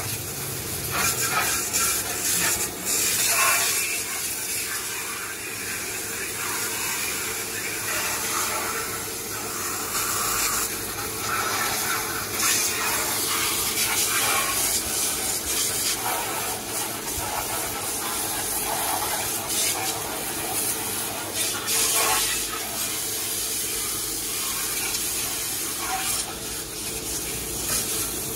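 Pressure washer jet spraying water onto a car's body: a continuous hiss of spray that swells and dips as the nozzle moves over the surface.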